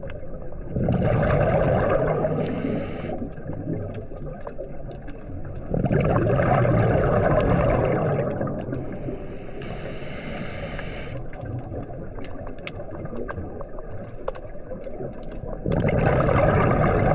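Scuba diver breathing through a regulator underwater. Exhaled bubbles rush and gurgle in three long surges. Between them come two shorter, high hisses with a thin whistle, as air is drawn through the regulator on the inhale.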